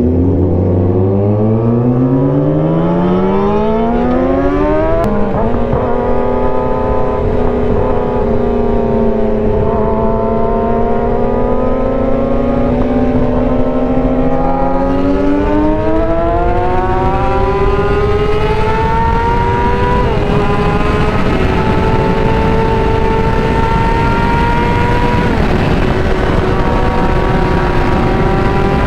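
Yamaha R6's inline-four engine pulling hard, its pitch climbing steeply before an upshift about five seconds in. It then holds fairly steady revs, climbs again, and shifts up twice more in the second half.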